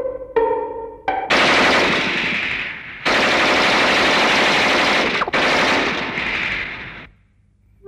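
Machine-gun fire in a war-film soundtrack: a dense, continuous rattle that starts about a second in, after a few plucked music notes, and runs for about six seconds with a short break near the middle before cutting off suddenly.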